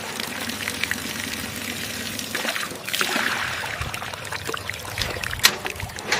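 Water pouring and splashing, a noisy rush with small scattered clicks that swells about halfway through, with a sharp click near the end.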